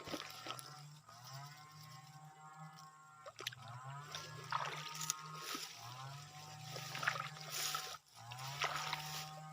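Background music: pitched notes that slide upward and then hold, repeating every two to three seconds over a low drone, with sharp percussive hits.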